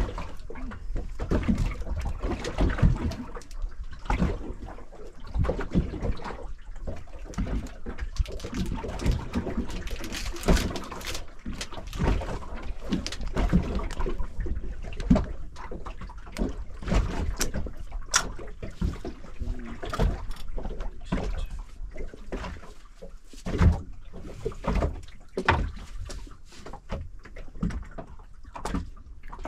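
Water slapping and lapping against the hull of a small drifting boat, with irregular knocks.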